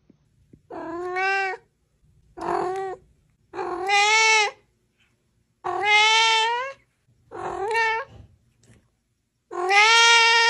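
Kitten meowing six times, each meow rising in pitch and then held for about half a second to a second, with short gaps between them.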